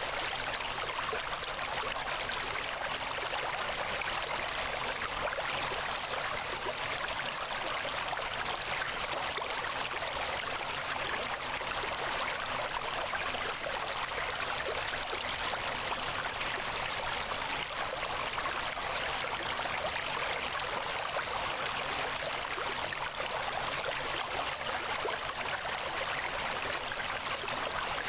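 Steady, even rushing noise with no breaks or changes, water-like in character and thin in the low end.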